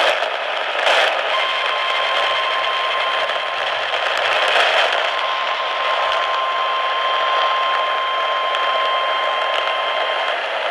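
Emergency alert tone over a weather radio broadcast: one steady single-pitch alarm tone over radio hiss. It starts about a second in, after a click and a short burst of noise, and stops near the end.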